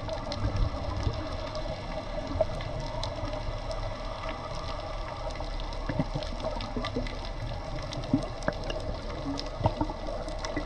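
Underwater sound on a scuba dive: a steady muffled wash of water with scattered sharp clicks throughout.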